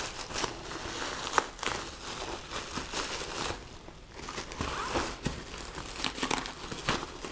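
Bubble wrap and plastic packaging crinkling and rustling as it is pulled and torn out of a padded mailer, with irregular sharp crackles.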